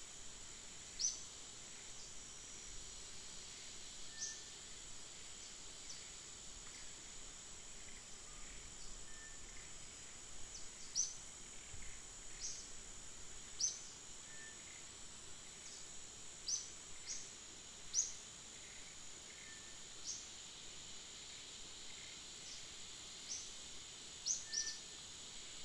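Tropical outdoor ambience: a steady high insect drone, with short high-pitched chirps every second or two.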